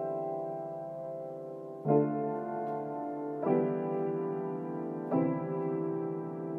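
Slow piano music: sustained chords struck about every second and a half, each ringing on until the next.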